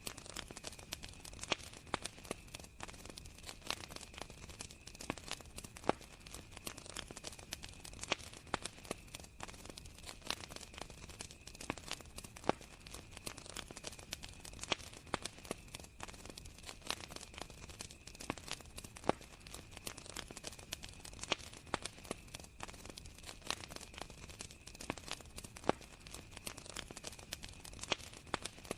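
Campfire crackling with irregular pops and snaps, over a steady high trill of crickets.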